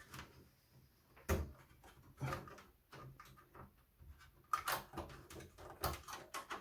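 Scattered clicks and light knocks of plastic and metal computer parts being handled, as the keyboard cable of a Compaq Portable is worked loose. There is a sharper click about a second in, then several more irregular taps.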